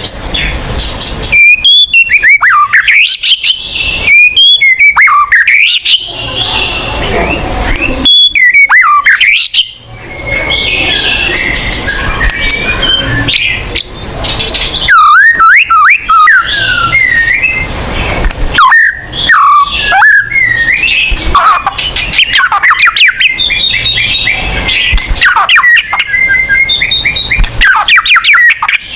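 White-rumped shama in full song: loud, varied whistled phrases sliding up and down, mixed with fast chattering runs of repeated notes and a few harsh calls, with only brief pauses.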